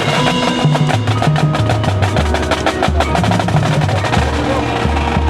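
Marching band playing a percussion-heavy passage: rapid drum strokes and short pitched mallet notes over low notes that step from one to the next about every half second.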